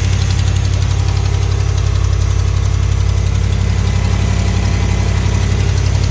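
Engine idling steadily with a fast, even ticking over its hum, which the owner suspects is lifter tick.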